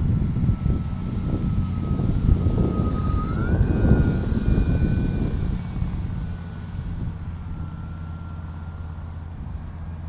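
Twin electric motors and propellers of an RC foam airplane whining in flight; the pitch jumps up about three seconds in, then holds and slowly sinks as the sound fades. Wind rumbles on the microphone underneath, strongest in the first half.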